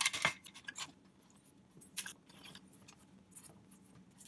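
Intel NUC's bottom cover being pressed back onto the case by hand: a few sharp clicks and knocks in the first second, one more click about two seconds in, then faint handling ticks as a screwdriver is brought to the corner screws.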